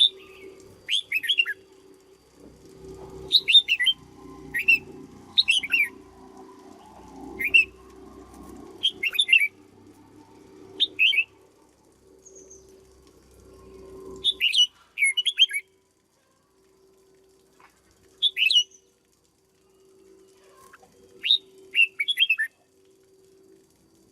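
Red-whiskered bulbul singing short, bright phrases, one every second or so, with a pause of a few seconds past the middle.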